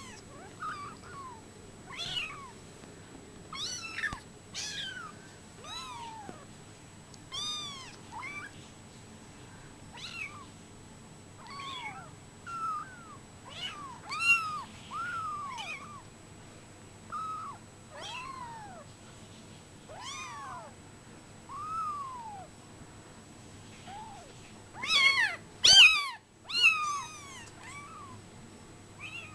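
Brown Bengal kittens, 24 days old, mewing: short high-pitched calls that rise and fall, about one every second or so. A few seconds before the end comes the loudest run, several calls close together.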